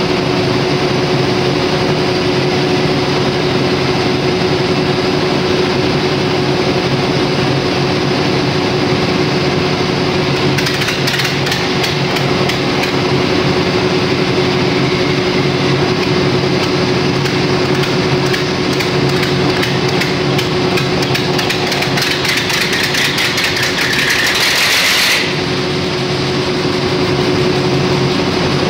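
Perkins 4006 six-cylinder diesel generator engine running steadily at load speed with its injector timing set wrong. About ten seconds in, a fast clatter of sharp metallic knocks starts over the engine's hum. The knocks grow quicker and denser, then stop abruptly a few seconds before the end.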